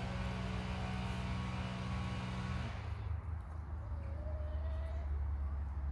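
A motor engine drones steadily at a constant pitch, then drops away about three seconds in, leaving a low rumble. A faint, short, drawn-out call follows near the end.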